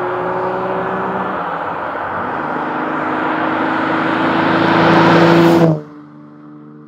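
Ferrari 365 GT 2+2's 4.4-litre V12 under acceleration, its note climbing in pitch and getting louder. The pitch drops back once, about a second and a half in, then climbs again. Near the end the engine sound cuts off suddenly, leaving a much quieter sound.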